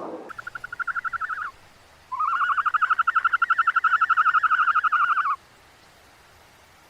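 A frog giving two rapid pulsed trills at a steady pitch, a short one and then a longer one of about three seconds.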